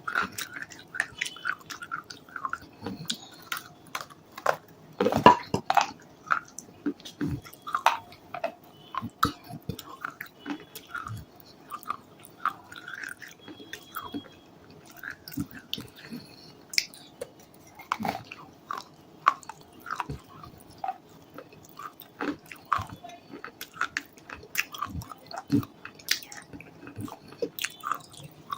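Close-miked biting and chewing of something hard and crunchy, with irregular sharp crackles and crunches and a loud crunching bite about five seconds in.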